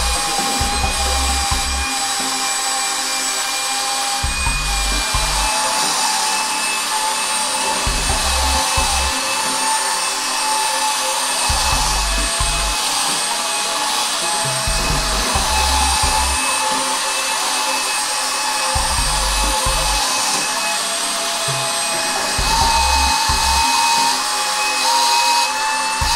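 Suction fan of an Air Hogs Zero Gravity RC toy, the TRON Legacy Light Cycle, running steadily with a high whine over a rush of air, holding the toy against the wall and ceiling.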